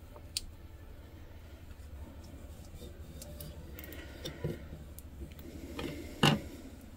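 Clear transfer tape carrying a vinyl stencil being pressed and smoothed by hand onto a glass bottle: faint rubbing and rustling with a few light clicks, the sharpest about six seconds in.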